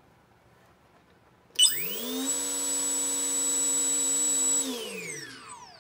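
Small brushless motor on a Castle Creations Talon 25 ESC flashed with brushless slot-car controller firmware. After a sharp click about a second and a half in, the motor whines up to speed, holds a steady high whine for a couple of seconds, then winds down with falling pitch near the end. It runs at full power with no throttle (pulse width modulation) signal, as the converted controller applies direct power to the motor.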